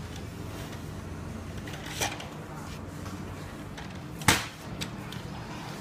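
Clicks and one sharp knock, about four seconds in, of a track saw being handled on its aluminium guide rail, over a steady low hum.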